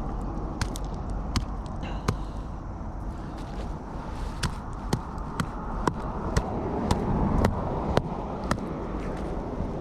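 Repeated sharp metal knocks, about twenty at uneven spacing: a recovered piece of scrap metal being banged to knock off the shells crusted on it.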